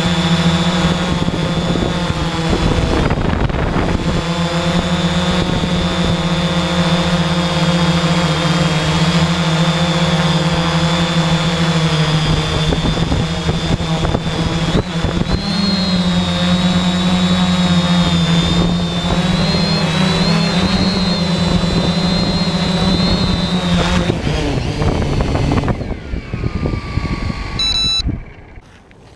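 Electric multirotor drone's motors and propellers, heard from its onboard camera: a steady buzzing whine with a high tone that wavers with the throttle and rises a little past halfway. The whine stops a few seconds before the end as the drone comes down onto the grass.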